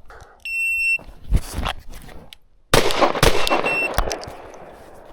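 A shot timer sounds a steady half-second start beep, then pistol shots follow in a string, the quickest run coming about halfway through, with a shorter beep among them.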